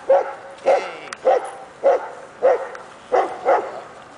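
Six-month-old dog barking in a steady run, about seven sharp barks roughly one every half second, as it is worked up during its first bite-work (protection) training.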